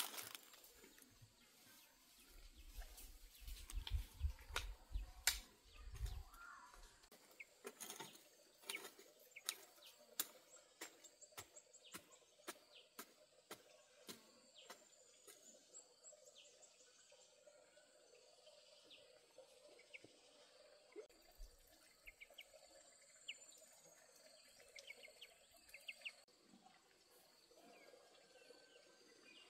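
Quiet outdoor ambience with birds chirping and trilling now and then. Through the first half comes a run of light knocks and clicks, with a few duller thumps a few seconds in.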